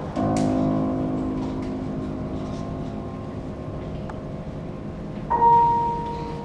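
Contemporary chamber music. A resonant low piano chord is struck and left to ring, fading slowly like a bell. About five seconds in, a loud held high note enters and sustains over it.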